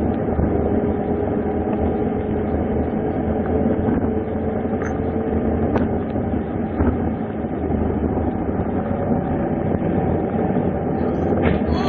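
A vehicle running steadily, with a continuous rumble of engine and road noise and a faint steady whine through the first half.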